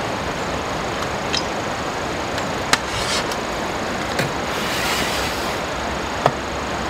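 Steady rush of a mountain stream, with a few sharp clicks and knocks of camping gear being handled. About two-thirds through, a drawer of an aluminium aircraft galley cabinet slides out.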